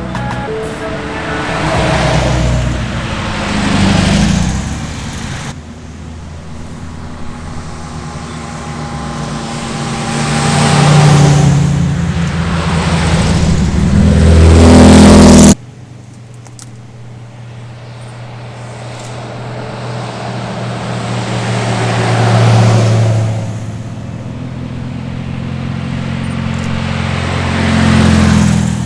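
Porsche and Mercedes-Benz cars passing one after another, about six of them, each engine swelling to a peak as it goes by and then fading. The sound cuts off abruptly twice between pass-bys.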